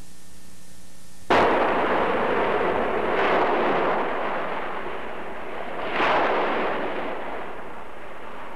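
Rushing water, a loud steady wash of noise like surf, that starts abruptly about a second in and swells twice more before easing.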